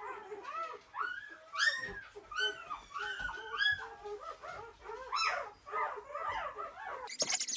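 Newborn pointer puppies whimpering and squealing in a quick run of short cries that rise and fall, several at once in places.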